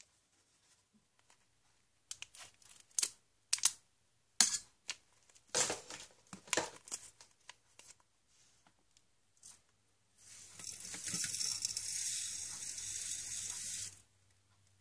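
A plastic candy packet crinkled and torn open in several sharp rips, then fizzy drink powder poured from a stick packet into a small plastic toilet-shaped cup: a steady hiss of about four seconds that stops suddenly.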